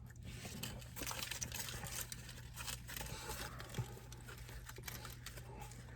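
Soft rustling and crinkling of paper food wrappers and bags, with small clicks and eating noises, over a low steady hum.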